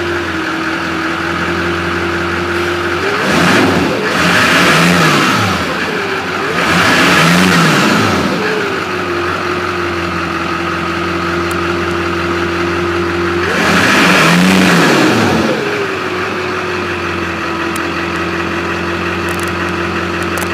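2001 6.6 L Duramax LB7 V8 turbodiesel idling, freshly restarted after a fuel filter head replacement and air bleed. It is revved three times, each rev rising and falling over two to three seconds: two close together about three seconds in and a third about thirteen seconds in, settling back to a steady idle between them.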